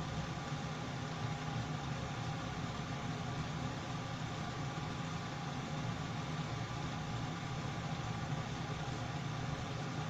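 Kitchen range-hood extractor fan running, a steady low hum with an even whooshing noise over it.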